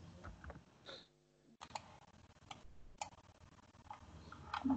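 A handful of faint, scattered clicks from working a computer's mouse and keyboard.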